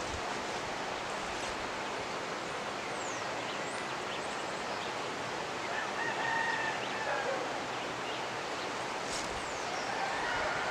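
Steady rush of the Jimenoa River, with a rooster crowing twice: once about six seconds in and again near the end. A few short, high bird chirps sound over the water.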